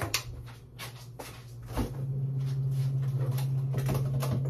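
A small refrigerator's door is handled and pulled open, with a few knocks and clicks. About two seconds in, a steady low hum from the fridge sets in and keeps going.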